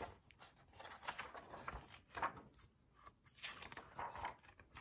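Pages of a hardcover picture book being turned by hand: several soft paper rustles and slides, the stiff endpapers among them.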